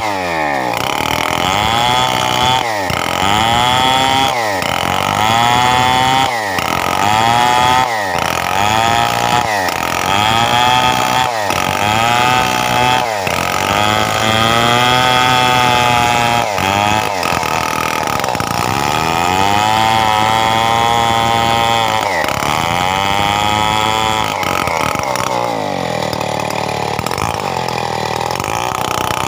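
Stihl 070 two-stroke chainsaw cutting coconut-palm wood into beams, its engine pitch dropping under load and climbing back again and again, about every one and a half to two seconds, with a few longer, steadier stretches past the middle.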